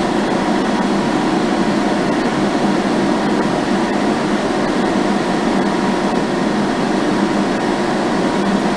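Ohmiya OC-18 centerless grinder running, its 15 hp motor driving the grinding and regulating wheels with a steady, unchanging hum and whirr.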